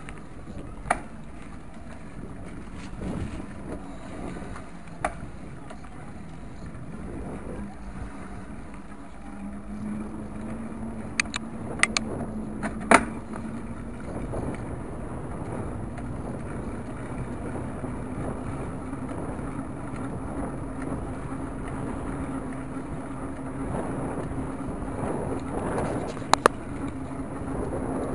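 Riding a bicycle along an asphalt street: steady rolling noise with wind on the microphone, and sharp clicks and knocks, a cluster of them about eleven to thirteen seconds in and a couple more near the end.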